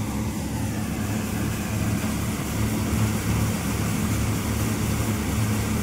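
Tractor-driven threshing machine running steadily as mung bean vines are fed through it, a low, even drone from the Mahindra tractor's engine and the thresher drum.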